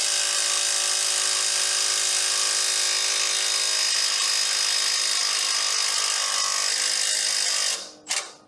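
Milwaukee M12 Fuel 1/2-inch stubby cordless impact wrench hammering steadily on a fastener for nearly eight seconds, then stopping abruptly near the end. The fastener does not break loose.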